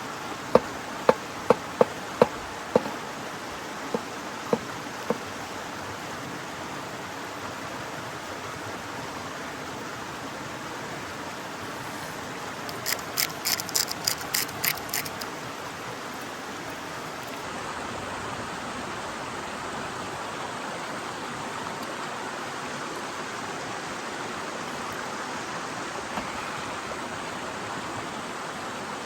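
Mountain river flowing, a steady rushing of water. A quick row of sharp knocks comes in the first few seconds, and a brief rattle of high clicks comes about halfway through.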